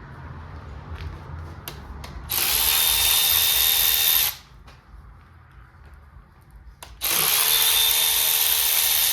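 Handheld power tool run in two bursts of about two seconds each, a steady high whir that stops sharply each time, with a few light clicks between; it is working the bolts during an engine teardown.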